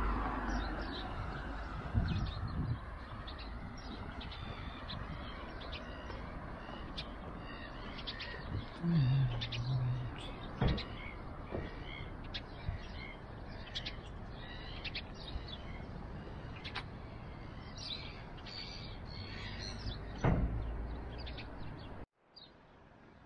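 Many birds chirping and calling over a steady outdoor background noise, with a few sharp knocks; the sound drops away suddenly near the end.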